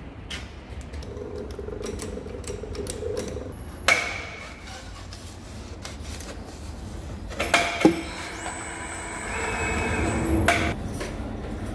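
Heavy steel rod eye, just parted off a hydraulic cylinder rod, being handled in and lifted out of a lathe's three-jaw chuck: a sharp metal clank about four seconds in, then a cluster of clanks past the middle with a ringing tone lingering after, over a steady low workshop hum.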